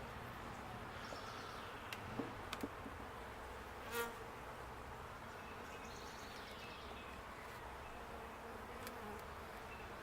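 Honeybees from an opened hive buzzing steadily, with a few faint clicks and one brief louder sound about four seconds in.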